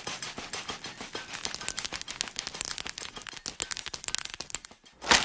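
A rapid, irregular run of small crackling and popping clicks, densest in the middle. After a brief lull there is one loud pop just before the end.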